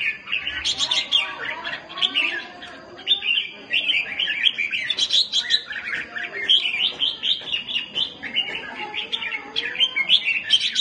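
Two caged red-whiskered bulbuls calling against each other in a song duel: a dense run of chirps and harsh chattering calls that overlap, with hardly a gap.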